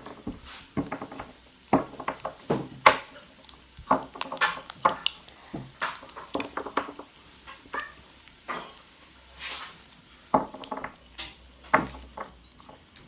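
Irregular sharp clicks, pops and clatters, a few a second, from homemade PVA-glue slime being mixed and worked.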